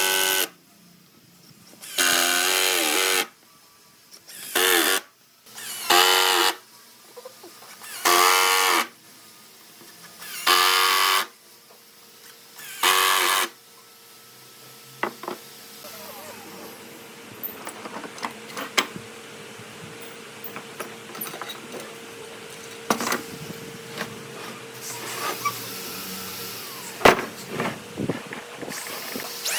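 A power tool run in six short bursts of about a second each, then quieter scattered clicks and knocks of handling in the second half.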